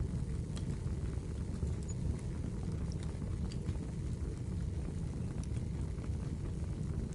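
A fireplace fire burning, with a steady low rumble of flames and scattered sharp crackles and pops.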